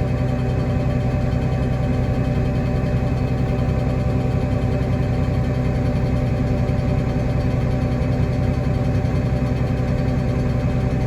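Tractor engine running at a steady speed, a constant hum with no change in pitch.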